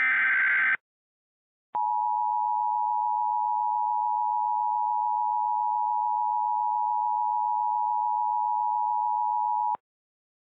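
Emergency Alert System broadcast: the last burst of the buzzy SAME digital data header ends, and about a second later the EAS two-tone attention signal (853 and 960 Hz sounded together) plays steadily for about eight seconds before cutting off sharply. The attention tone signals that an emergency message is about to be read.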